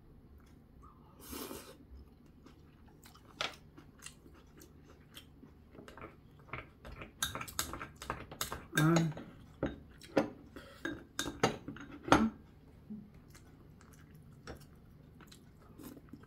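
Spoon and chopsticks clicking and clinking against ceramic bowls as food is scooped and eaten, a run of short sharp knocks, busiest in the middle, with some chewing.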